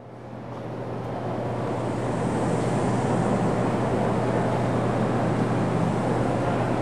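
Steady indoor background noise of a large hall, a continuous rushing haze with a low steady hum, fading in over the first two seconds and then holding level.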